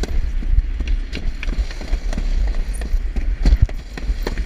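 Alpine slide sled running fast down its trough: a steady low rumble of wind on the microphone, with irregular clacks and knocks as the sled rattles over the track.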